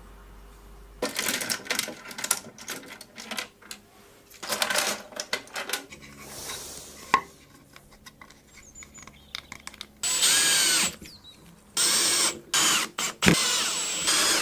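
A small high-speed spinning device, such as a rotary tool or the 3D-printed micro turbine being spun up, runs in several short bursts with a high whine. The longest bursts come in the last few seconds.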